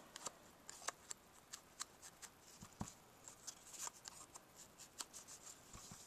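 Faint, scattered light taps and paper rustles as a small ink block is dabbed along the edges of cardstock strips to distress them with ink.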